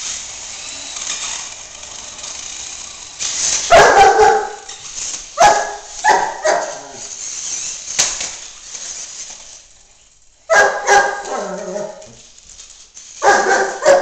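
Young German Shepherd barking at a remote-control car it is wary of, in short bursts: one loud bark about four seconds in, a few more between five and seven seconds, a run around eleven seconds and another near the end.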